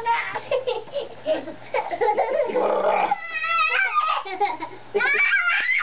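Young children laughing and squealing in high-pitched bursts, loudest about three seconds in and again near the end.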